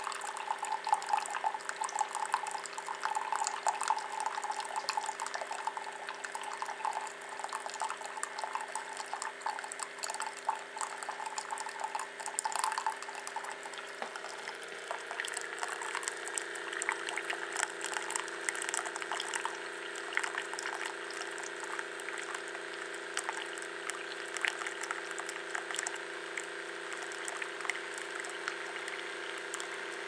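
Keurig K-Select coffee maker mid-brew: a thin stream of coffee pouring and splashing steadily into a mug, over the steady hum of the machine's pump. The splashing changes tone about halfway through as the mug fills.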